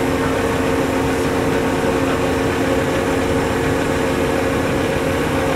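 Truck-mounted crane's diesel engine running at a steady speed with an even hum, while the crane holds a suspended tree of about 45 tons.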